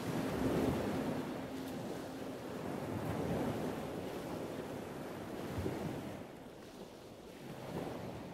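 Ocean waves washing, a rough low rush of surf that fades down over the last few seconds. A steady low hum stops about two seconds in.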